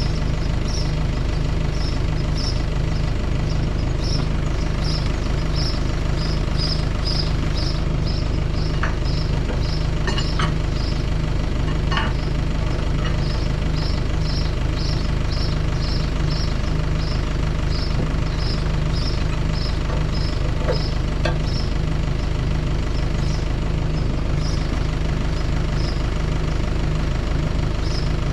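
An engine running steadily at idle, with a regular high ticking about two to three times a second and a few faint knocks.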